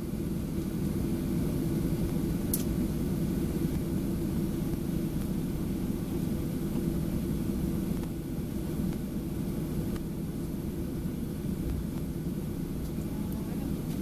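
Steady low rumble of a Boeing 737-800's engines and air system heard from inside the passenger cabin, with one faint click about two and a half seconds in.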